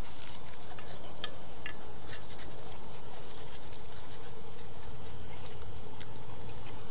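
Two pit bull puppies play fighting on dry grass: scuffling with light clicks and jingling, busiest in the first couple of seconds.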